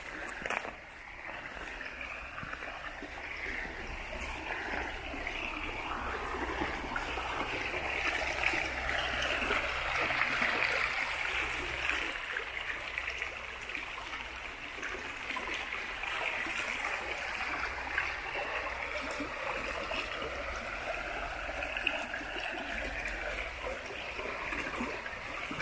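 Shallow rocky stream running over stones: a steady rush of water that grows a little louder around the middle.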